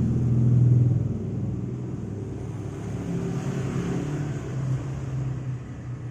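A sleeping orange cat's low, continuous rumbling snore, loudest about a second in.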